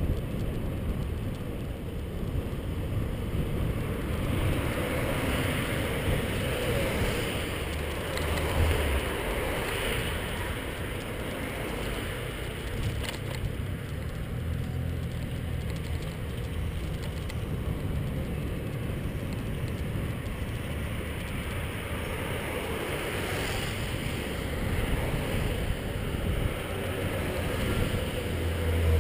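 Wind and road noise on a bicycle-mounted camera while riding along a city street, with low buffeting gusts now and then.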